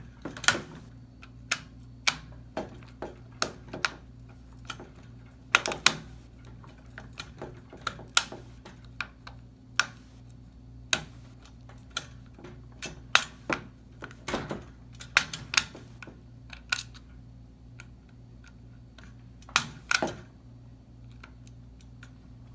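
Screwdriver turning a screw into a metal adapter on a plastic dishwasher rack rail, with irregular clicks and taps of the tool and plastic parts as the screw is tightened down. A steady low hum runs underneath.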